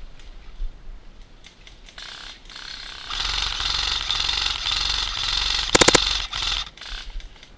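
Airsoft guns firing rapid full-auto bursts, a continuous rattle of fast clicks starting about three seconds in, with a louder, sharper burst just before it stops near the end.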